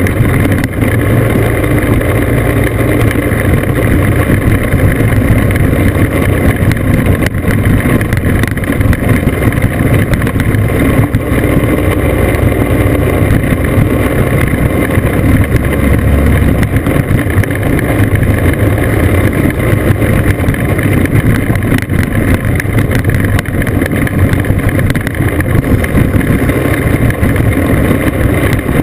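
Classic two-stroke scooter engine running steadily under way, heard from a camera on the scooter, with wind on the microphone and tyres rolling over a gravel road with occasional knocks from bumps.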